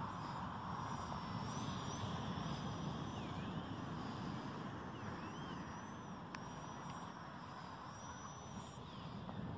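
Wind and a steady outdoor hiss, with a faint high whine from the model plane's motor and propeller that wavers up and down in pitch as it flies.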